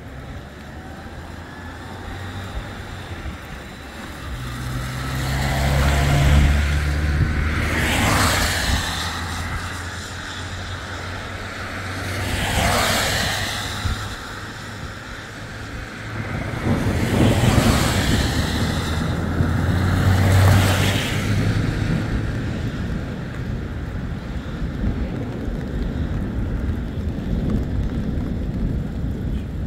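Cars passing one after another: four swells of tyre and engine noise that rise and fade, over a low steady engine hum.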